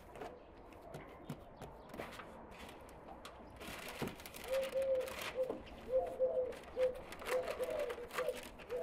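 Baking paper rustling and crinkling as it is unrolled into a steel baking tray, with small clicks and knocks of handling. About halfway through, a bird starts repeating short calls, two or three a second, which are the loudest sound.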